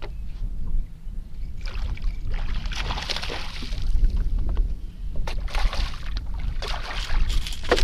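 A hooked fish thrashing and splashing at the surface right beside a small boat as it is brought in to be landed, in two spells of splashing about two and five seconds in. A steady low rumble of wind on the microphone runs underneath.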